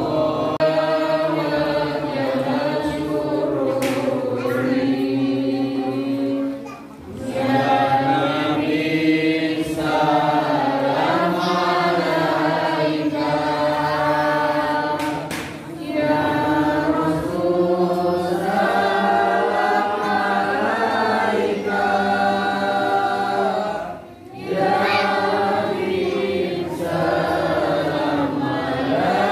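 A group of voices singing together in long, held phrases, with a short break about every eight seconds.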